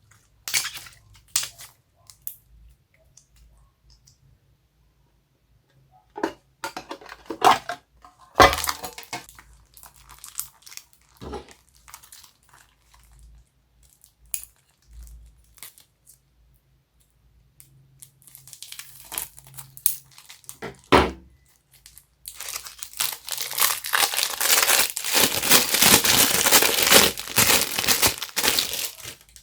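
Homemade slime being worked by hand with mixed-in items, making crinkling, crackling noises. A scattered few at first, then a dense, continuous crackle from about 22 seconds on.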